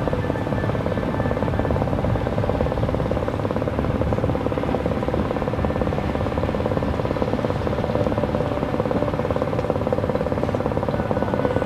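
A boat's engine running steadily, a constant drone with a fast throb to it.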